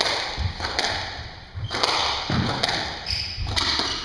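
Squash rally: the ball is struck hard by rackets and hits the walls in sharp cracks about once a second, echoing in the court, with duller thuds in between.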